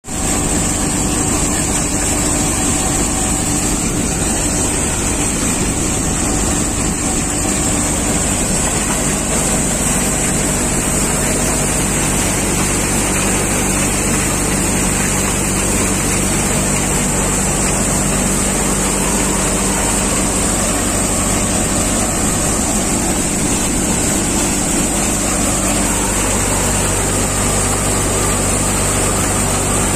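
Multi-crop thresher running steadily under power, a continuous engine-driven machine drone with a constant high-pitched hiss over it. The low engine note shifts slightly about 26 seconds in.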